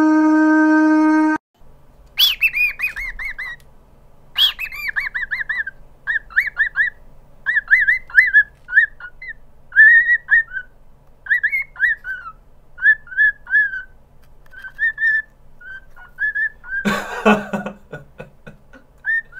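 A dog's howl, pitch-corrected by Auto-Tune into one steady held note, ends about a second and a half in. Then a cockatiel with its head inside a paper cup whistles a tune of short falling and rising notes, with a brief scuffling rattle near the end.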